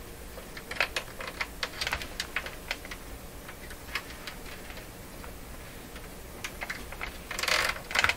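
Irregular small plastic clicks and taps as hands work a clip and the plastic back panel of a Sony HCD-CP300 micro hi-fi unit, with a louder, longer scrape near the end.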